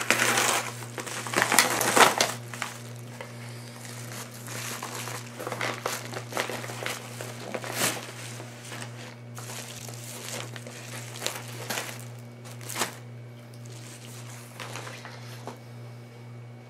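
Packaging being opened by hand: irregular crinkling and rustling with occasional sharp clicks, loudest in the first couple of seconds, then lighter handling. A steady low electrical hum runs underneath.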